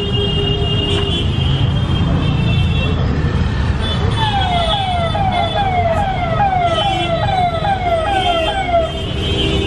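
Siren-like electronic tone: a quick falling note repeated about three times a second, starting about four seconds in and lasting about four and a half seconds, over the steady hubbub of a crowded street market.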